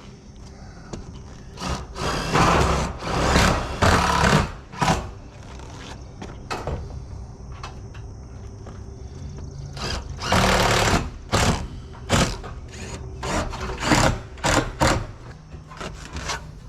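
Roofing work on a metal roof: a power driver runs in short bursts driving screws into the metal panels, amid sharp knocks and scuffs on the sheet metal and the squeak of rubber-soled shoes on the panels.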